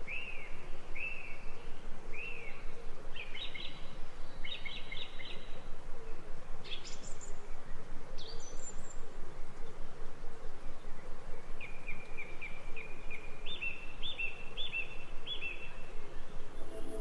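Floodplain forest ambience: several songbirds calling in short repeated chirps and whistles over a steady background hiss, with a quicker run of repeated notes in the last few seconds.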